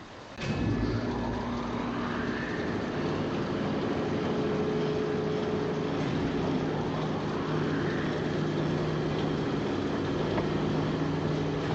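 Engine hum sound effect: a steady mechanical drone with a few held low tones under a noisy wash, starting about half a second in.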